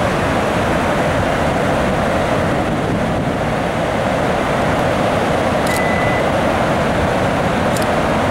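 Floodwater pouring through the open spillway gates of a concrete dam and crashing into the river below: a steady, dense rush of water from a flood-control release.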